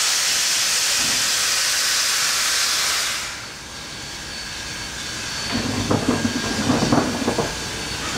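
Narrow-gauge steam locomotive letting off steam in a loud, steady hiss that cuts off abruptly about three seconds in. Near the end comes a brief spell of lower, uneven sound.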